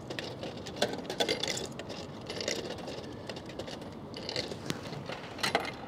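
Coins being pushed one at a time into a vending machine's coin slot, each landing in the coin mechanism with a click, among the clink of coins held in the hand. The clicks come irregularly, a few close together about a second in and again near the end.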